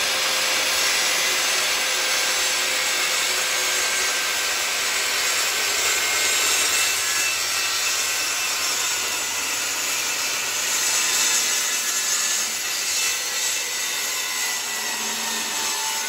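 Guild 1400 W 185 mm circular saw running steadily under load, its blade ripping through hardwood plywood in one long continuous cut.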